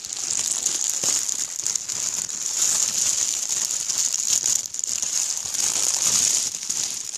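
Clear plastic wrapping crinkling continuously as a silicone handbag is handled and pulled about inside it.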